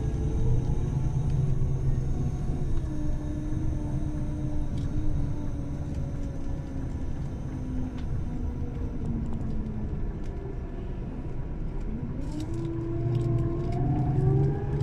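Bus interior noise: a steady low engine and road rumble with a whining tone that slowly falls in pitch, then rises again near the end. A few light rattles about three-quarters of the way in.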